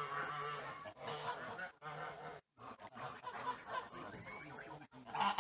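Domestic geese honking and gabbling in a near-continuous run of calls, with a louder honk near the end.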